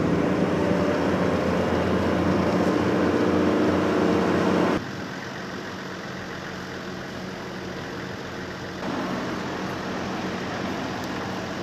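Engine hum and road noise of a moving car, steady and loud. The level drops suddenly about five seconds in and rises a little again about nine seconds in.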